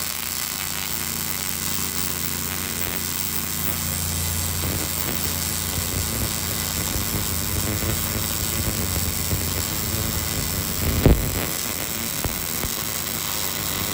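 Welding: the steady crackling hiss of the arc laying a pass on steel tubing, over the welder's electrical hum. A single sharp knock about eleven seconds in.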